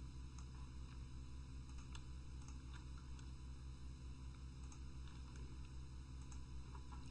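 Faint, scattered clicks of a computer mouse, over a steady low electrical hum.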